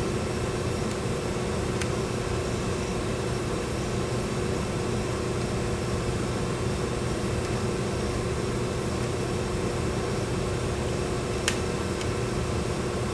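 Steady hum of a fan with a faint constant tone, and a single short click about eleven and a half seconds in.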